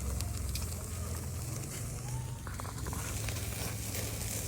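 Meat cooking over an open wood fire: a steady hiss with scattered small crackles and pops.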